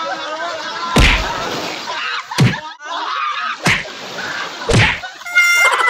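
Four loud whacks, a little over a second apart, each a sharp hit with a deep low end.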